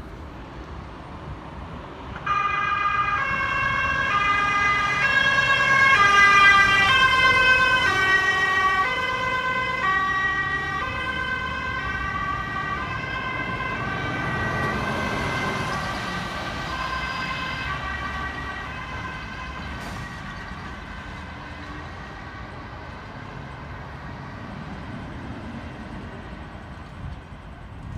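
Fire trucks' two-tone sirens alternating between a high and a low note, cutting in suddenly a couple of seconds in. The sirens are loudest a quarter of the way through and fade as the trucks drive past and away, with a rush of engine and tyre noise midway.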